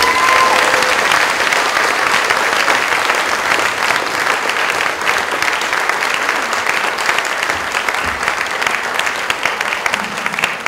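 Audience applauding steadily after a song, a dense patter of many hands clapping that eases slightly toward the end.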